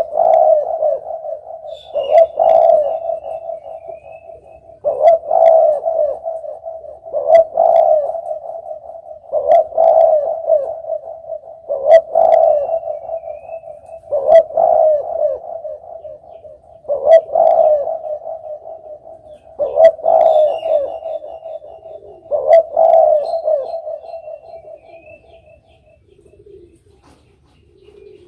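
Spotted dove (derkuku) cooing: a low, mellow phrase repeated every two to three seconds, fading away over the last few seconds.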